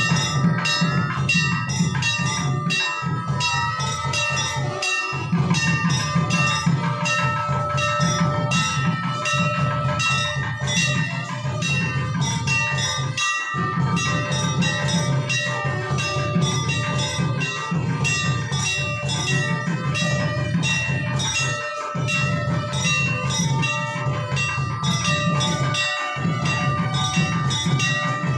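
Temple bells ringing rapidly and without pause, marking the harathi lamp offering. Several ringing tones overlap and hang steady over a low, dense rumble.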